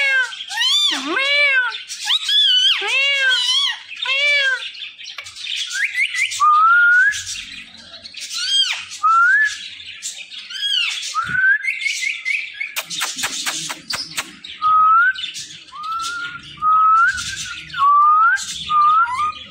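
Indian ring-necked parakeet calling and whistling: a quick run of short arching calls in the first few seconds, then a long series of short rising whistles, repeated one after another. A brief burst of rapid clicks comes about two-thirds of the way through.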